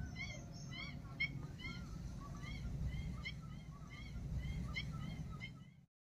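Birds chirping: a string of short, arched chirps, a few a second, over a low background rumble, cut off abruptly near the end.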